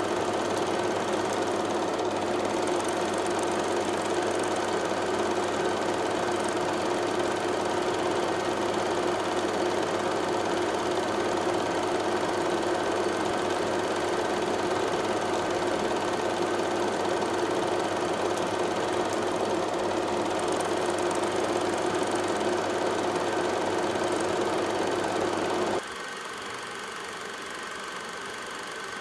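Steady mechanical hum with a few fixed tones, dropping sharply in level near the end.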